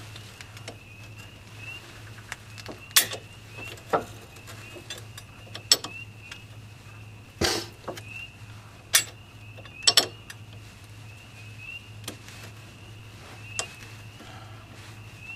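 Scattered sharp metallic clicks and knocks, about eight in all, as a new wheel stud is worked by hand into the front wheel hub flange, a stud that does not want to seat well. A steady low hum runs underneath.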